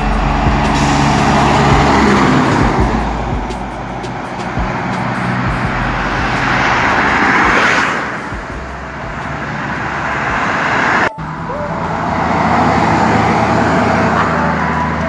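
Highway traffic passing close by: cars and trucks going past with tyre and engine noise that swells twice as vehicles go by. After a sudden break, the noise comes back more evenly, with a truck's diesel engine in among it.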